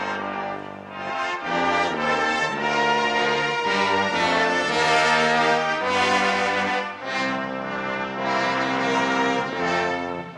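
Background music led by brass instruments, playing slow held chords that change every second or two.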